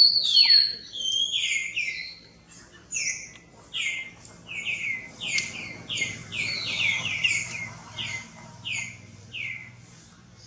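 Baby monkey giving a long run of short, high-pitched cries, each sliding down in pitch, one or two a second and sometimes several in quick succession.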